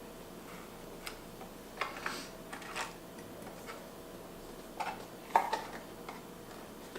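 Scattered small plastic clicks and light knocks from a GoPro camera being worked free of the holder in its packaging. They come irregularly, about half a dozen, with the sharpest about five and a half seconds in.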